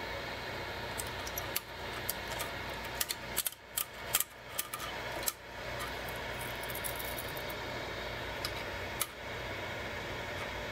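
Scattered light clicks and taps, bunched from about one to five seconds in and twice more near nine seconds, over a steady machine hum.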